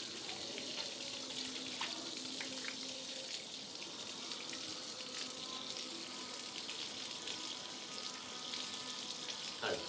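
Water running from a garden hose, spraying and splashing onto a wet puppy's fur and the floor during a bath: a steady hiss.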